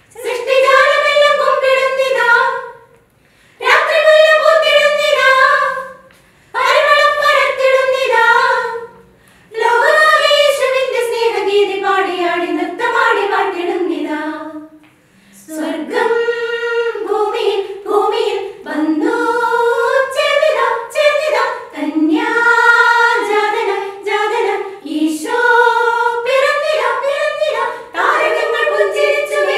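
A women's choir of eight singing a Christmas carol unaccompanied, in phrases of a few seconds. The first few phrases are broken by short silent breaths, and the singing runs on without a break from about halfway.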